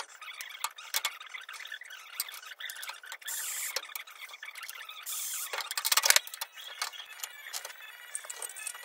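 Workshop handling noises: a pocket-hole jig, bar clamps and a board being shifted and clamped on a table-saw top, with a run of clicks and scrapes and a loud clatter about six seconds in.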